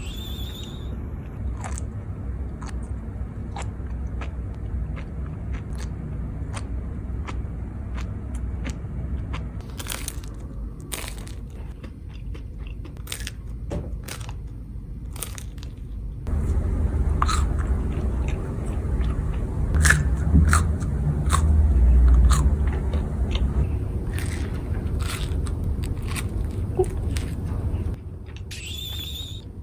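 Close-up mukbang eating sounds: a person biting into and chewing a crunchy toasted hot sandwich, with irregular crisp crunches. A louder low rumble sits under the chewing from about halfway through until near the end.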